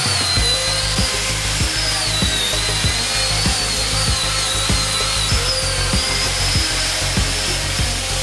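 Makita angle grinder running a purple abrasive stripping disc across a rusty steel plate, its high whine wavering in pitch as it grinds the rust down to bare metal. Background music with a steady beat plays underneath.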